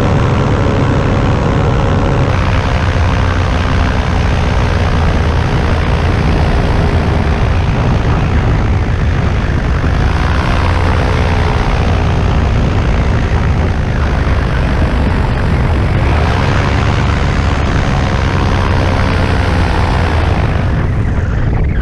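Paramotor's Vittorazi Moster 185 single-cylinder two-stroke engine and propeller running in flight, with a broad rush of air. The engine pitch wavers a few times with throttle changes.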